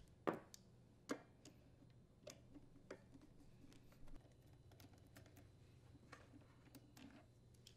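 Faint, sparse clicks and light metal ticks of a Torx screwdriver working the insulator bolts on a small leaf blower engine, the clearest ones just after the start and about a second in.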